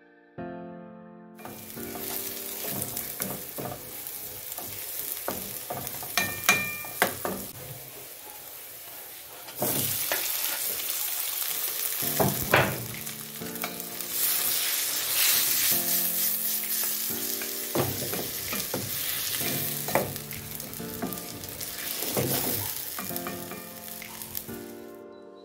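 Sliced tomatoes and onions sizzling as they fry in a nonstick frying pan, stirred with a wooden spatula that clicks against the pan now and then. The sizzling starts about a second and a half in and gets louder about ten seconds in.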